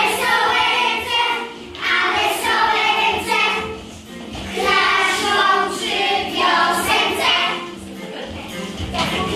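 A children's song: a group of children's voices singing together over music, in phrases with short breaks between them.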